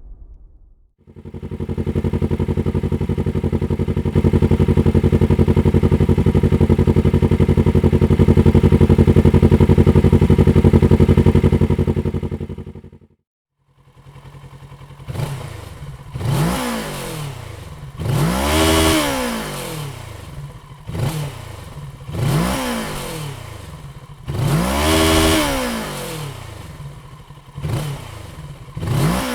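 2023 Kawasaki Z650's parallel-twin engine held at a steady speed, stepping louder about four seconds in and cutting off around thirteen seconds. After a short gap it is revved in repeated throttle blips, its pitch rising and falling with each one.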